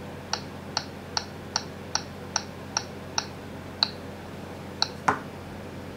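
Key clicks from typing a password on the Garmin zūmo XT2's touchscreen keyboard. About ten evenly spaced clicks come at roughly two and a half a second, then two slower ones, and a louder, duller tap about five seconds in.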